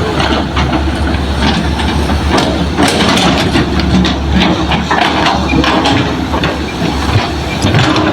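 Heavy earthmoving machinery's diesel engine running steadily, with many short knocks and scrapes over it.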